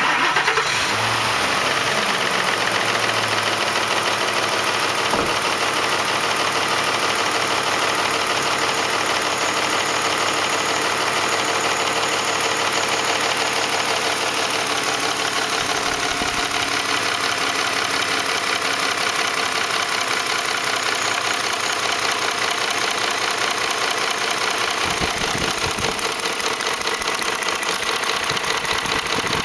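A Ford 5.4L three-valve V8 idling with a steady rapid ticking and knocking. The sound is the timing chains slapping against the engine because the chain tensioners have failed, together with worn cam phasers.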